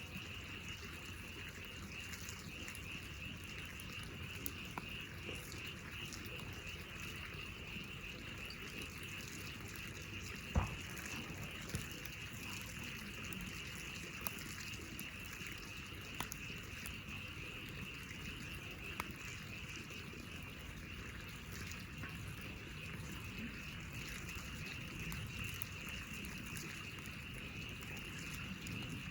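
Frog chorus, a steady high shimmering trill from many frogs calling together, with a few faint clicks and one sharper knock about ten seconds in.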